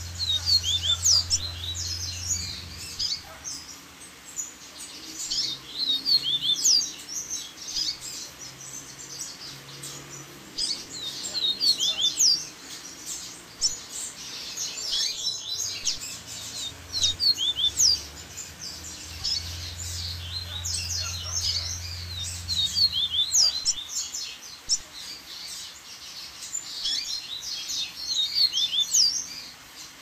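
Double-collared seedeater (coleiro) singing: phrases of quick, high, twittering notes, repeated every few seconds.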